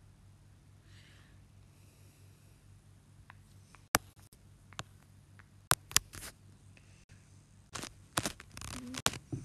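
Handling noise: sharp clicks and taps, a few from about four seconds in, then a quick cluster of knocks and rustling near the end, over a faint low hum.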